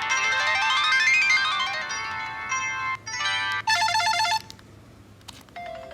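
Samsung SCH-a815 cell phone playing ringtones through its speaker: a rising run of chime-like melody notes that stops about three seconds in. Shorter snippets of other tones follow, including a quick string of repeated beeps, each cut off after under a second.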